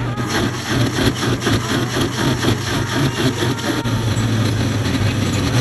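Countertop blender running, its motor humming steadily while it churns a smoothie, with a pulsing rhythm of about four beats a second.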